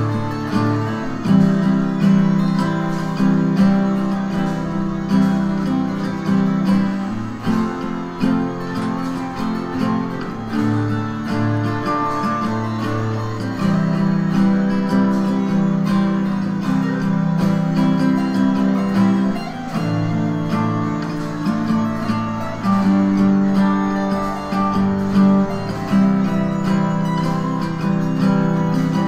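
Acoustic guitar strumming chords, with the chord changing every few seconds.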